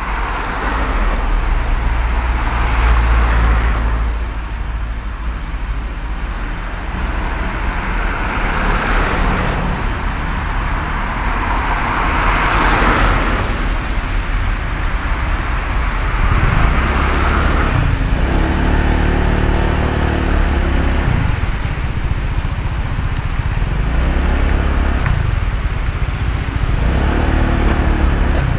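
Honda PCX125 scooter's single-cylinder engine heard from inside the rider's helmet, with heavy wind rumble on the microphone and traffic swelling past every few seconds. In the second half the engine's pitch rises and falls repeatedly as the scooter creeps forward and slows in the queue.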